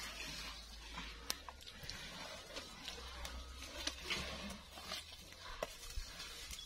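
Asian elephant browsing on dry bushes: leaves rustle and twigs snap in scattered sharp cracks as it pulls branches with its trunk.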